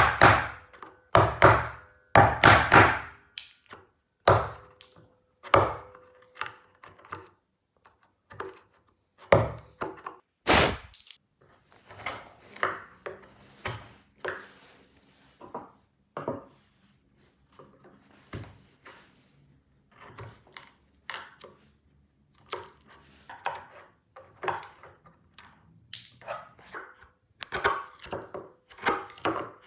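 Mallet blows on a wood chisel, chopping out waste in a hand-cut joint: a run of irregular sharp knocks, some ringing briefly, the loudest in the first few seconds.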